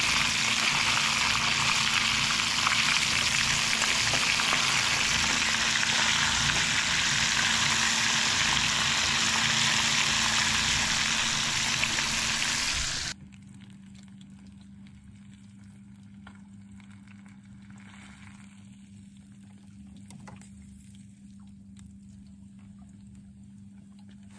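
Pieces of fish frying in hot oil in a pan on a portable gas stove, a loud steady sizzle as they are turned with a fork. About halfway through the sizzle cuts off suddenly, leaving only a faint low hum.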